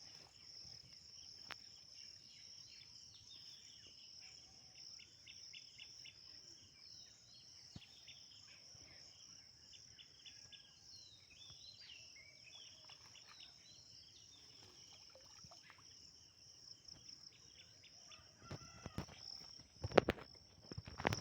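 Insects chirring in a steady, high-pitched drone, with short chirps over it. Near the end come a handful of sharp knocks.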